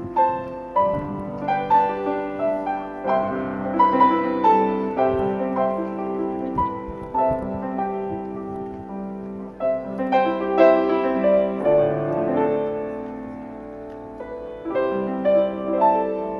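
Piano music: notes and chords struck one after another, each ringing on and fading.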